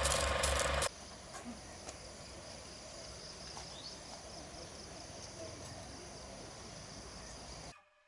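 Background music with a clicking, ratchet-like beat cuts off about a second in. It leaves faint outdoor ambience with a steady high insect drone, which stops just before the end.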